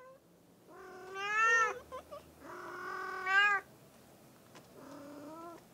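Domestic cats meowing: three drawn-out meows of about a second each, the second the longest and loudest, the last quieter and lower in pitch, rising at its end.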